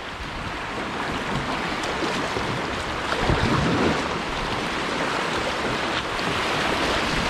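Rushing whitewater of a river rapid at high water: a steady, dense roar of churning water.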